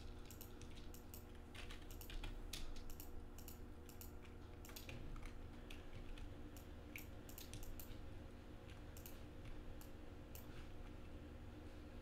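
Faint, irregular clicks of a computer keyboard and mouse during graphics editing, coming thickest in the first few seconds and sparser after. A low steady hum lies underneath.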